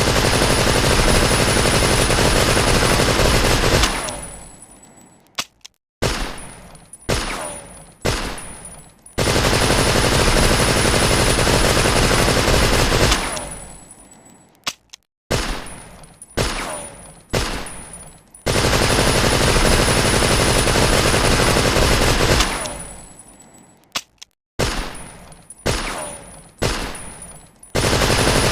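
Thompson submachine gun (tommy gun) sound effect: a long burst of rapid automatic fire lasting about four seconds, dying away, then a few separate shots, each ringing off. The pattern repeats three times.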